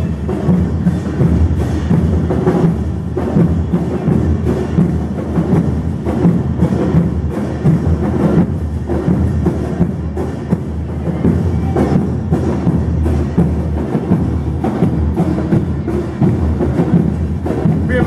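Murga porteña percussion: bass drums with cymbals mounted on top (bombos con platillo) beating a steady, driving dance rhythm.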